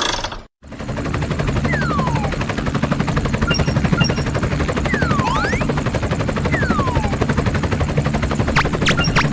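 Fast, continuous mechanical rattling over a low hum, starting just after a brief gap. It is crossed by three falling whistle glides, and a few high, bell-like dings come in the middle and near the end.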